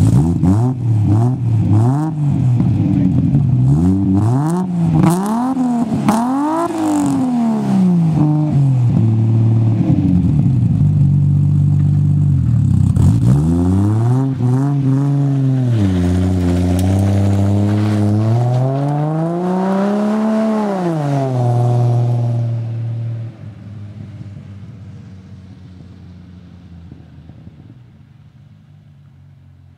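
Toyota Aristo's single-turbo engine breathing through a custom 3.5-inch stainless exhaust with one HKS silencer, blipped repeatedly in quick rev rises and falls, then held higher and swept up and down a few more times. About two-thirds of the way through the sound drops suddenly and fades as the car pulls away.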